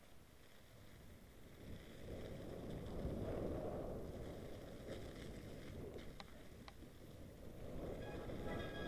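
Mountain bike rolling down a snowy trail, heard as a low rumble of wind and tyre noise on the camera microphone that grows louder after about two seconds, with a few sharp clicks a little past halfway.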